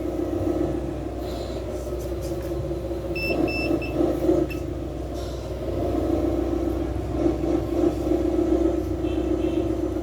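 A 1/14-scale Hino 8x8 RC truck running, a steady pitched hum that swells and eases as it manoeuvres. Three short high beeps about three to four seconds in, like a reversing warning.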